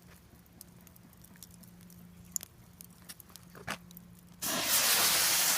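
Faint scattered clicks, then about four seconds in a cheap firework smoke grenade catches and starts pouring out smoke with a sudden, loud, steady hiss.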